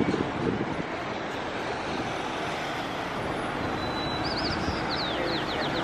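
Street traffic: cars and a pickup truck driving past, a steady tyre and engine noise that grows slightly louder. A quick series of short high chirps about four seconds in.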